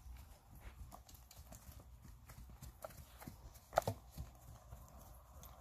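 Pony hoofbeats on a sand arena, faint and irregular, with one sharper knock about four seconds in.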